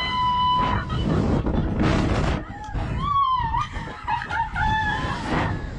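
Two women riders screaming and shrieking with laughter on a slingshot ride, in long, high, wavering cries, over the rush of wind on the microphone.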